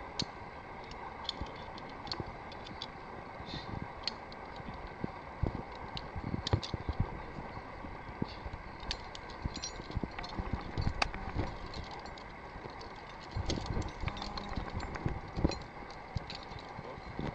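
Irregular clicking and clinking of metal climbing hardware, carabiners and pulleys, as rope is hauled through a pulley haul system, with dull knocks and rope handling over a steady background hiss.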